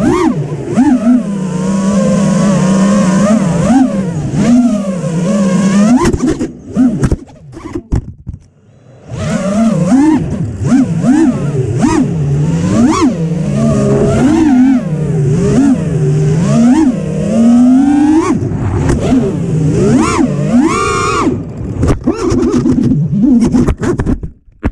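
FPV freestyle quadcopter's brushless motors buzzing, their pitch swooping up and down with rapid throttle changes. About seven seconds in they fall nearly quiet for a second or two, then throttle back up.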